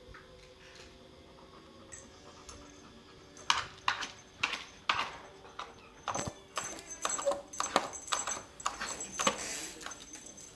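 A pet dog barking at a vacuum cleaner: about three seconds of quiet, then a run of short, loud barks, roughly two a second.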